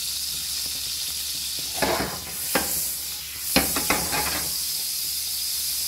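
Butter melting and sizzling in a hot pan, a steady high hiss, with a few short knocks and clatters between about two and four seconds in.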